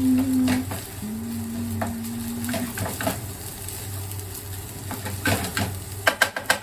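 Fried rice sizzling in a frying pan while a spatula stirs and scrapes it, with a quick run of sharp scraping clicks near the end. Background music with long held notes plays underneath.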